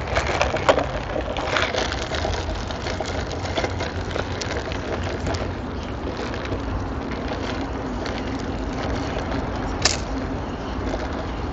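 Leaves and branches rustling and twigs crackling as a person pushes on foot through dense overgrown brush, over a steady low rumble. A single sharper snap comes near the end.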